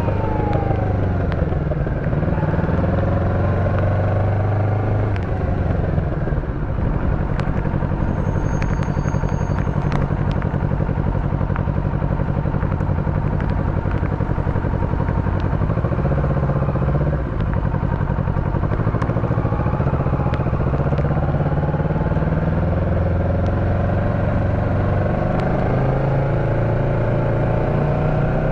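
Motorcycle engine running under way, its pitch rising and falling with throttle and gear changes and climbing again near the end as it accelerates, over a steady rush of road noise.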